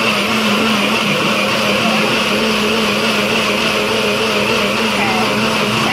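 Personal bullet-style blender running steadily at full speed, its motor holding one even pitch as it purées pumpkin guts with milk and water.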